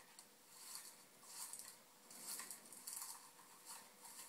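Faint rustling in short scratchy bursts every half second to a second, like steps brushing through tall grass, played back through a TV's speaker.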